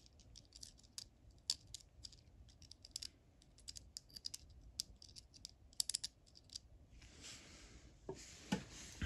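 Metal tweezer tips clicking and scratching against a flashlight's LED circuit board and threaded head, a quick irregular run of small sharp clicks. Near the end there is a short rustle and a soft knock as the parts are handled.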